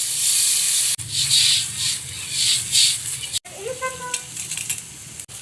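Food sizzling in a hot pan, a loud hiss that swells and eases as it is stirred. It cuts off sharply twice and is fainter after the second break.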